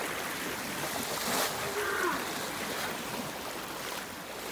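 Steady rushing of a shallow river, with water splashing around a wading elephant's legs.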